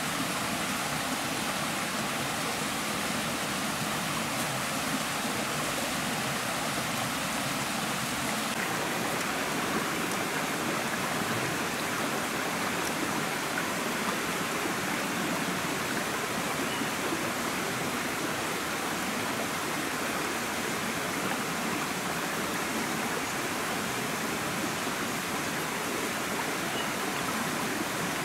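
Small forest stream running steadily over rocks.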